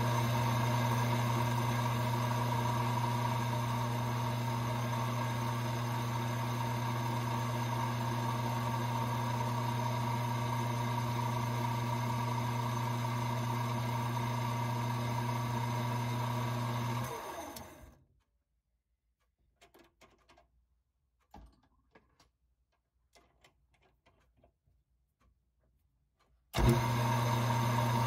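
Small bench lathe motor running with a steady hum as it spins a brass rifle case in its chuck, while a hand-held K&M neck turner takes the finishing cut on the case neck. About 17 seconds in the lathe winds down, leaving a few faint handling clicks, and near the end the motor starts up again.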